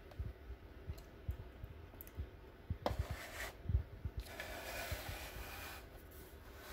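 Quiet handling noise from fingers on a small diecast model car: soft knocks and light clicks, with one sharp click about three seconds in as the model's little door is swung open, then a rustle lasting over a second.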